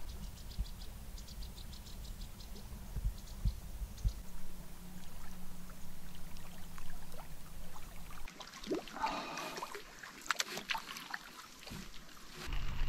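Lake water splashing and trickling in scattered small splashes over a steady low rumble. The sound changes abruptly about eight seconds in.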